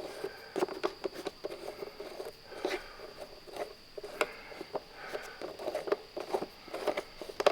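Air filter cover on a Kohler lawn mower engine being worked loose and removed by hand: irregular clicks, knocks and rustles, with a steady high-pitched tone in the background.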